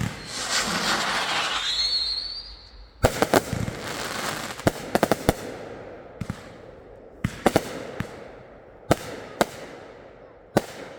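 Consumer fireworks going off: a bang and a rising hiss with a short rising whistle, then a string of sharp bangs at uneven intervals, with crackling hiss between them.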